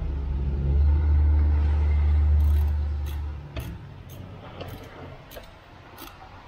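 A motor vehicle engine rumbling low and steady, then fading away after about three seconds. A few light clicks follow, from a screwdriver working at a hose clamp on the intake pipe.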